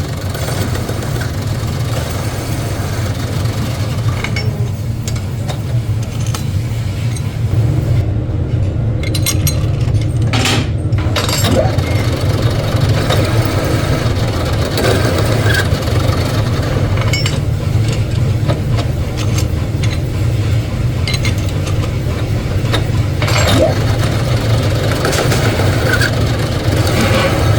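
Factory machinery running with a steady low hum, with scattered metallic clinks and taps.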